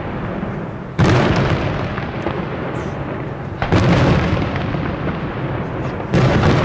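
Three heavy aerial firework shells bursting, about two and a half seconds apart, each bang trailing off in a long echo.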